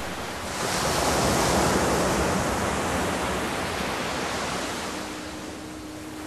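A rushing noise, like surf or wind, that swells about half a second in and then slowly fades. A faint, steady low tone joins it near the end.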